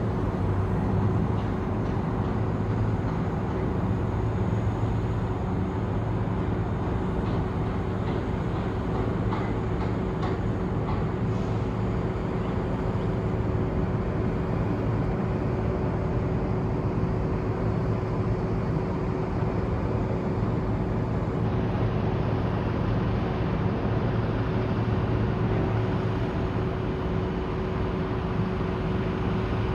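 Steady low mechanical drone of engines and machinery, with a constant hum and a few faint clicks about a third of the way through.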